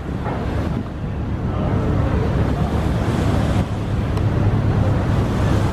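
Steady rush of churning river water and wind buffeting the microphone, over a continuous low engine drone.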